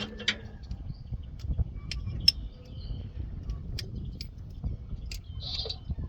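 Scattered light metallic clicks of hand tools as a socket and extension are fitted to a ratchet, over a steady low rumble.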